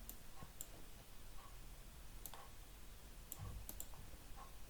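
Faint, irregular clicks of a computer mouse, about eight over the stretch, some close together in pairs, over a low steady hum.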